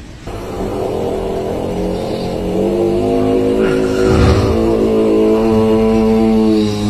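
A sleeping person snoring with a long, steady, humming drone that holds its pitch for several seconds, stepping up in pitch about two and a half seconds in, with a breathy rasp around the middle.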